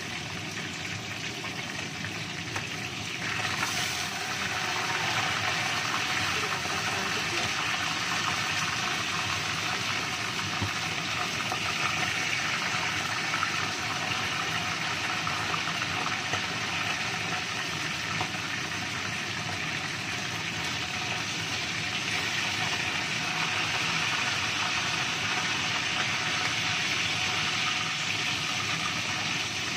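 Whole tilapia frying in hot oil in a frying pan: a steady sizzle that grows louder about three or four seconds in.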